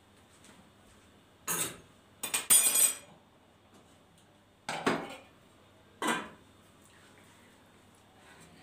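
Kitchenware being handled: four short bouts of clinks and knocks from pots, dishes and cutlery. The loudest is a ringing clatter about two and a half seconds in.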